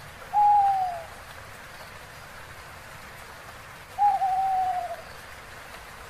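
A bird hooting twice, two long slightly falling hoots about four seconds apart, the second wavering at its start, over a faint steady hiss.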